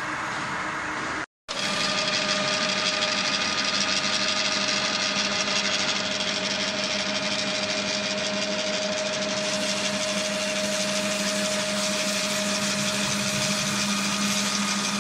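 LM1450C universal milling machine running, its motor and gear drive giving a steady mechanical hum with two held tones, one middle and one low. The sound cuts out completely for an instant about a second in, then the machine runs on a little louder.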